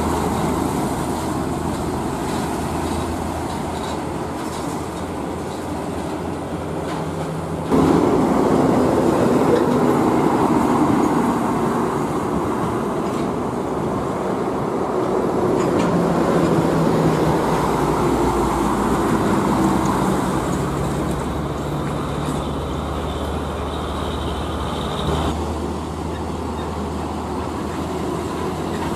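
Heavy diesel trucks' engines running as the trucks roll slowly past, a steady low drone with traffic noise over it. The sound jumps abruptly twice, about eight seconds in and a few seconds before the end, as one truck's sound gives way to another's.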